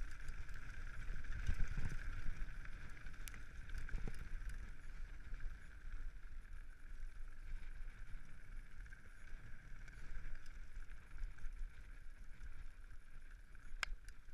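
Mountain bike rolling fast down a gravel trail: tyres on loose stones, with wind rumble on the handlebar microphone. A steady high buzz is strongest in the first few seconds, and a few sharp clicks come through, one about three seconds in and one near the end.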